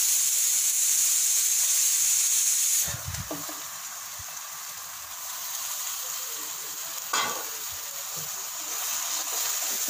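Oil sizzling in a hot pan of fried onions and spices as raw chicken pieces are put in by hand. The sizzle is loud for about three seconds, then a thud comes and it carries on much softer, with a sharp knock about seven seconds in.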